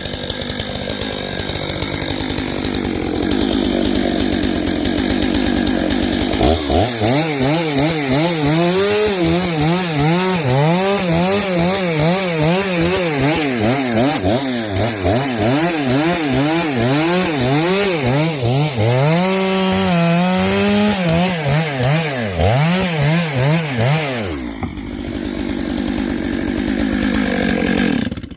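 Stihl MS 661 C two-stroke chainsaw cutting through a large oak round. Its engine pitch rises and falls over and over for much of the stretch as it works under load, then runs steady again before cutting off suddenly near the end.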